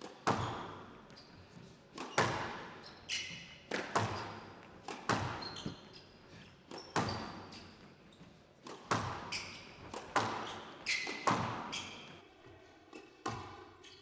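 Squash rally: the ball cracks off the rackets and walls about once or twice a second, each hit ringing out in a large hall, with short high squeaks of players' shoes on the court floor between the hits.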